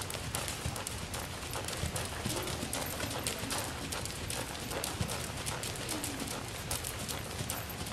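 A horse's hooves striking the dirt footing of an indoor arena in a steady run of hoofbeats as it trots.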